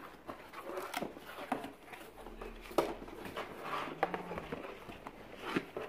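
Cardboard shipping box being opened by hand: flaps rustling and scraping, with several sharp clicks and knocks as the contents are handled.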